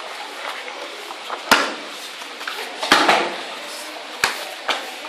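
Thuds and slaps of aikido partners landing on interlocking foam mats as they are thrown in free-technique practice: three sharp impacts about a second and a half apart, with a fainter knock near the end.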